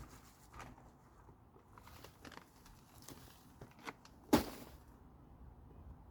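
Scattered light knocks and scuffs, with one sharp, loud knock a little past four seconds in.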